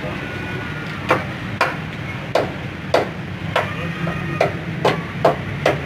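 A series of sharp hammer knocks, about nine irregularly spaced strikes roughly half a second apart, over a steady low hum.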